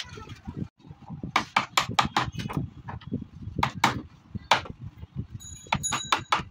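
Runs of quick, sharp knocks as a hammer taps a chisel into a wooden window frame, cutting the recess for a lock. The last run of strikes rings briefly with a metallic tone.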